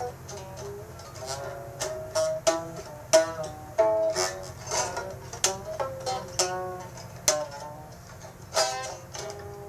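Music made of single plucked-string notes, each starting sharply and fading, played irregularly at about one to two notes a second.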